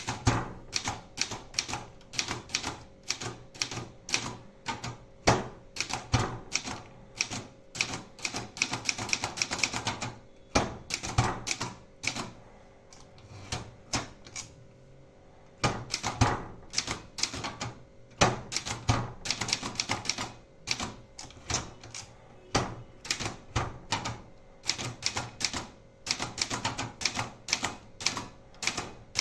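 Brother 250 typewriter being typed on: quick runs of clacking keystrokes, several a second, with a pause of a few seconds about halfway through. A faint steady hum runs beneath.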